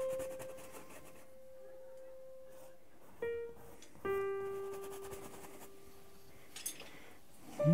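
Background music of slow, sparse piano notes, each struck once and left to ring and fade: one note at the start, a short one about three seconds in, and a lower note about four seconds in that rings for a couple of seconds.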